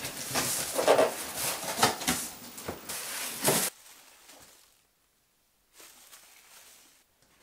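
A large cardboard shipping box being opened and handled: rustling and scraping of cardboard flaps with scattered knocks, cutting off abruptly about three and a half seconds in, followed by faint rustling of paper packing.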